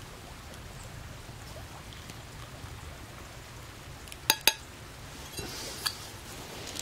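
Hot water poured from a metal pot into an enamel mug. About four seconds in, the pot strikes the mug twice with sharp, ringing metallic clinks, followed by a brief trickle.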